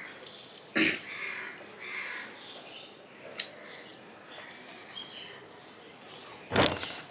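Crows cawing a few times, harsh and short, with two loud, sharp bursts about a second in and near the end.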